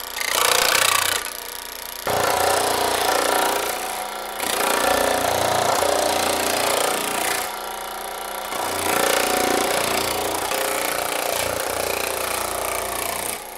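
Baileigh PH-19 reciprocating power hammer running, its die hammering rapidly on a sheet-metal panel to shrink it with a thumbnail die. The rattle cuts out and restarts several times.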